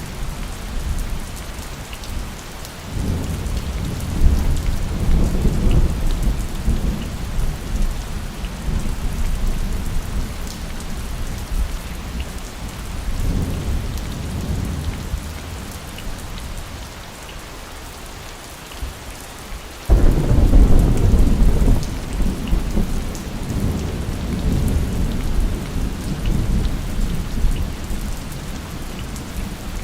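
Steady heavy rain with rolling thunder. A low rumble builds a few seconds in and a weaker one follows partway through. Then a sudden, louder thunderclap comes about two-thirds of the way in and rolls on for several seconds before fading back under the rain.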